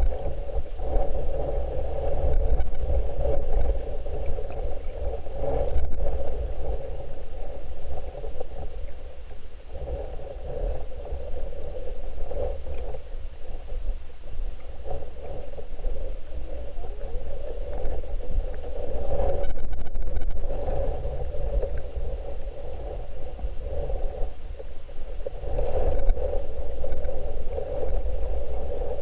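Muffled, steady rush and low rumble of flowing creek water picked up by a camera submerged in the stream, swelling and easing every several seconds.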